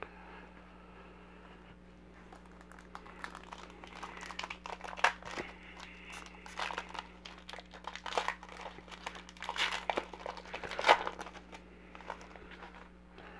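Foil wrapper of a Panini Contenders football card pack crinkling and tearing as it is ripped open by hand, starting about three seconds in, with several sharp crackles, the loudest near the end.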